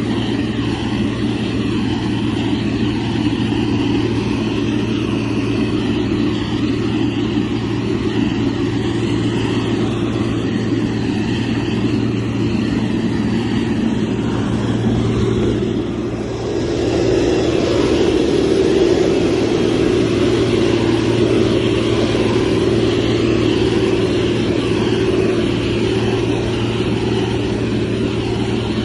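Heavy construction machine's diesel engine running steadily, most likely the motor grader's, dipping briefly a little past halfway and then running a little louder.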